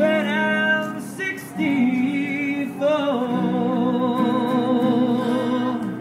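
A man sings with his acoustic guitar. In the second half he holds one long note with vibrato, which stops near the end.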